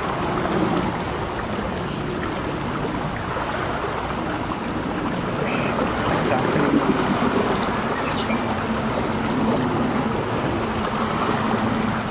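Seaside ambience: wind buffeting the microphone over sea water lapping at a rocky shore, with a steady high-pitched hiss above it.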